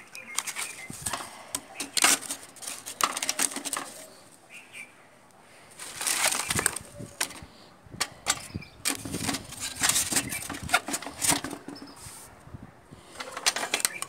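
Sun-dried firewood sticks clattering and knocking against one another and against a metal bucket as they are gathered and loaded in, in several bouts of rapid clatter.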